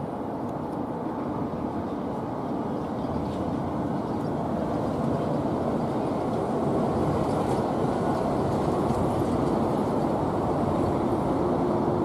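Steady low rumble of background noise, growing slightly louder about five seconds in, with no gull calls.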